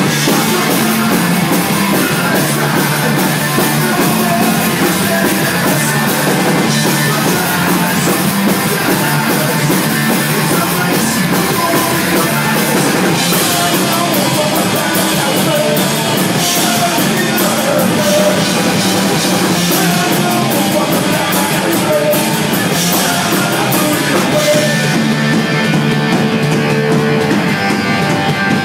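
A live Oi! punk band playing at full volume: electric guitar, bass guitar and drum kit, with a lead vocal sung over them.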